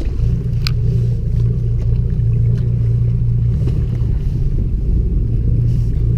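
Boat engine running with a steady low drone, with wind buffeting the microphone. A single sharp click comes just under a second in.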